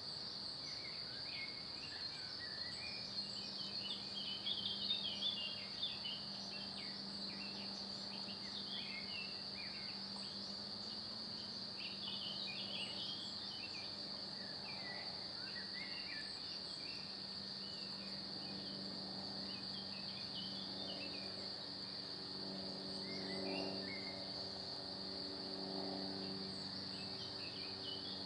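Outdoor woodland ambience: a steady high-pitched whine under scattered short chirps, busiest a few seconds in, with a low steady hum building in the second half.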